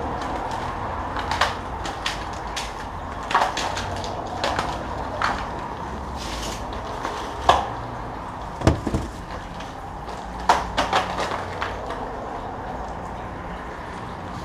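Scattered knocks and clicks of a road bicycle being handled and laid down on a wet concrete floor, the loudest a pair of clatters around the middle, over a steady low rumble.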